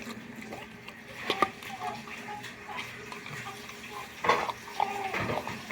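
Slime being squeezed and pulled out of its tub: irregular wet, sticky squelches and pops, the loudest about a second and a half in and again about four seconds in.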